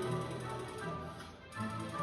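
Recorded orchestral music with typewriter-like tapping clacks worked into the rhythm.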